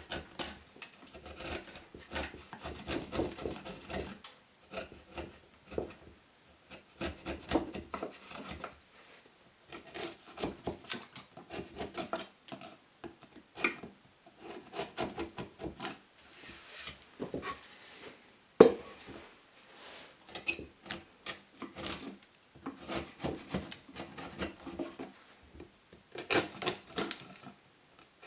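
Wood chisel pushed by hand, paring softwood in short scraping, slicing strokes that come in irregular clusters with brief pauses. One sharp knock stands out about two-thirds of the way through.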